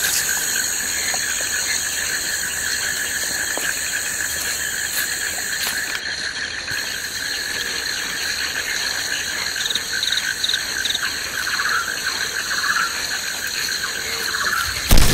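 A steady, high-pitched chorus of jungle insects buzzing with a fine pulsing texture. A single sharp thump comes near the end.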